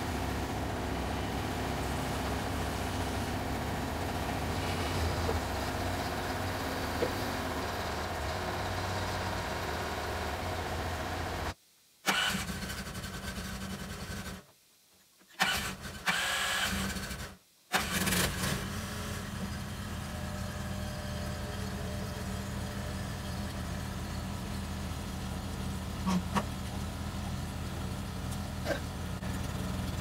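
Engine of the pallet-fork loader running steadily as the birch log is lifted onto the sawmill bed. The sound cuts out briefly three times in the middle, and there are a couple of light knocks near the end.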